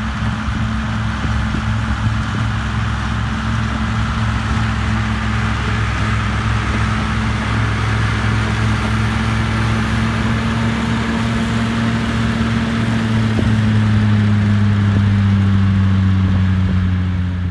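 Diesel tractor engine running steadily under load, driving a PTO forage harvester that cuts and blows grass. It gets louder as the rig passes close, and its note drops slightly near the end.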